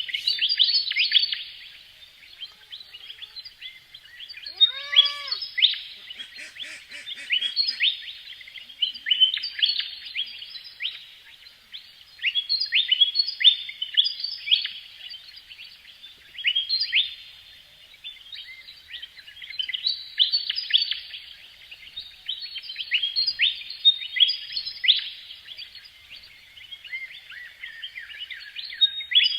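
Small birds chirping and twittering in quick bursts of high notes, a new phrase every second or two. About five seconds in, a single lower call rises and falls.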